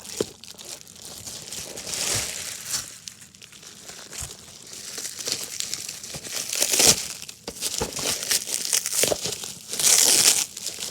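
Packaging being handled and opened: irregular crinkling and rustling with some tearing, in several louder surges.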